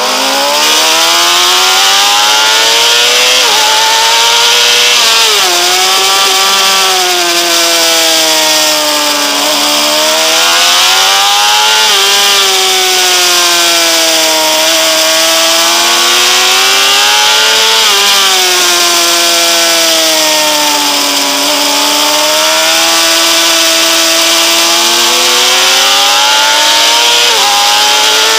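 Honda CBR600RR's inline-four engine revving up and down through the gears on track, its pitch climbing steadily under acceleration and jumping suddenly at each gear change. A steady rush of wind runs underneath.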